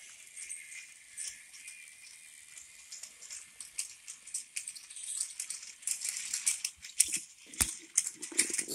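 Motorised plastic toy train running on plastic track, its wheels and wagons clicking and rattling. The rattling grows louder about halfway through, with one sharp knock near the end.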